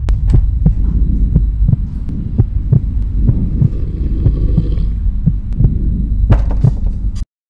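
Horror sound design: a low droning hum under a fast, heavy pulse like a heartbeat, about three beats a second, which cuts off abruptly near the end.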